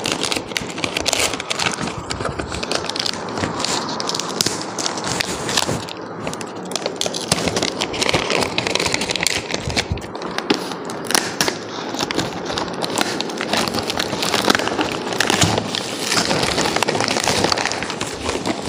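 Wrapping paper being torn and crumpled off a gift box by hand: continuous crackling and rustling.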